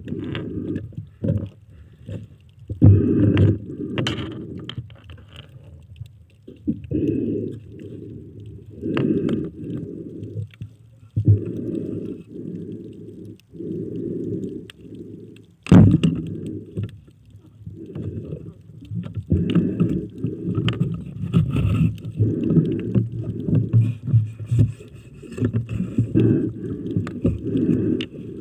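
Muffled rushing water heard underwater, in repeated surges about a second long, with a few sharp knocks, the loudest about sixteen seconds in.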